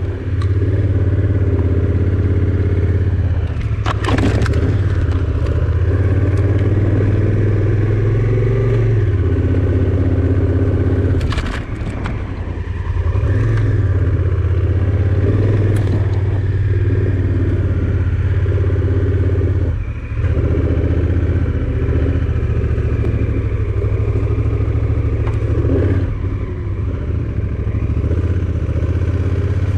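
Motorcycle engine running steadily while riding, easing off briefly twice. A few sharp clatters are heard over it.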